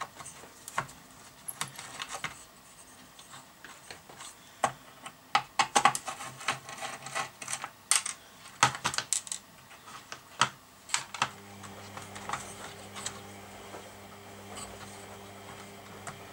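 Small metal clicks and clinks of a nut runner working nuts and handling parts on an old radiogram chassis, irregular and mostly in the first ten seconds. A low steady hum comes in about eleven seconds in.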